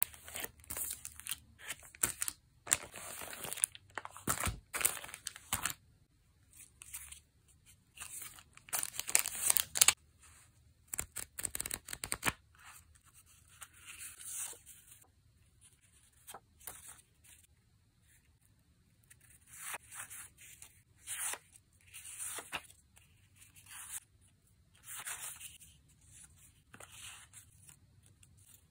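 Clear plastic packaging bag crinkling and rustling in irregular bursts as it is handled and opened, loudest over the first ten seconds or so. After that come softer, sparser rustles as stacks of paper cards are leafed through.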